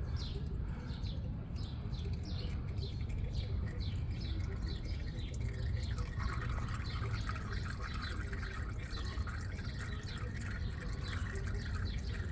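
Used engine oil running from a pickup's drain plug hole into a drain pan, a steady pouring and splashing stream. About six seconds in, the pour gets brighter and denser.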